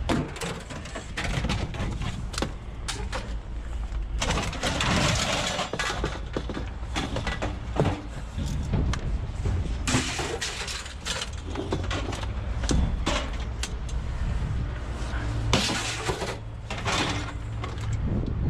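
Repeated knocks, clanks and scraping as scrap metal is handled and worked apart, over a steady low hum.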